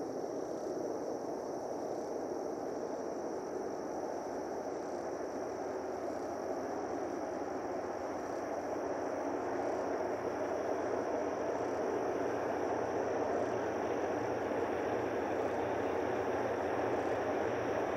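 Distant EMD-engined diesel locomotives hauling a freight train toward the listener, a steady rumble with a low engine hum that grows gradually louder through the second half.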